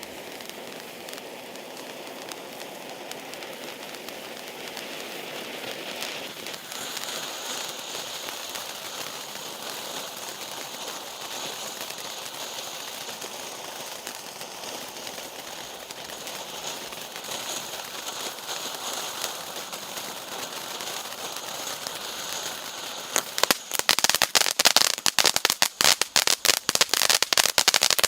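Р4220 'Сверчок' (Cricket) firework going off: a steady hiss with fine crackling builds over the first twenty-odd seconds. Near the end it turns into a rapid, dense string of loud sharp cracks.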